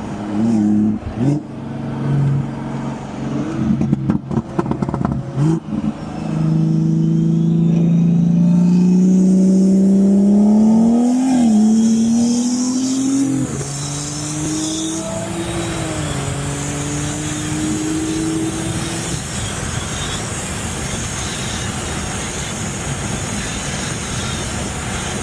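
BMW B58 turbocharged straight-six at full throttle, its note rising steadily and dropping briefly at each upshift, then lifting off into steady wind and road noise.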